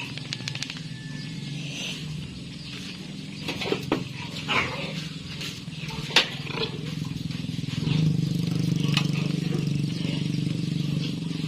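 Piglets giving a few short squeals over a steady low hum.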